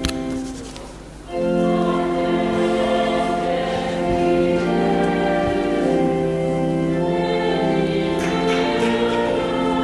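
Church music: a held organ chord dies away, and about a second in, choir singing with organ accompaniment begins and carries on.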